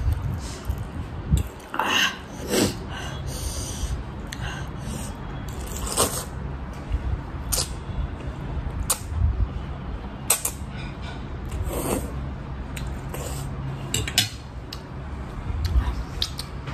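Slurping and chewing of instant ramen noodles, picked up close on a clip-on microphone, with irregular short noisy bursts and a few sharp clicks.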